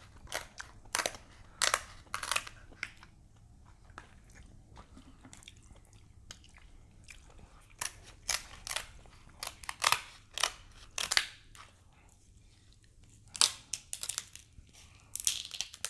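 Close-up eating sounds from grilled king crab legs: irregular sharp cracks and crunches of shell and meat, with chewing in between.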